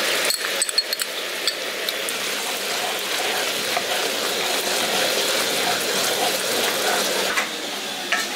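Fried masala sizzling in a pan as poppy-seed paste is added and stirred in with a spoon. The spoon clinks and scrapes against the pan a few times in the first second or two, then a steady sizzle.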